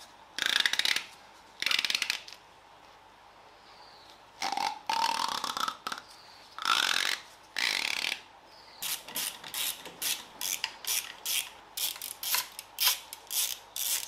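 Hand work on an engine bay with tools: several separate rubbing, scraping strokes, then a quick run of short strokes, about two to three a second, through the last five seconds.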